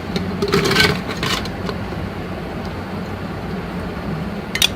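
Frozen strawberries dropped into a blender jar, clattering from about half a second to a second and a half in, with a short clatter near the end, over a steady low hum.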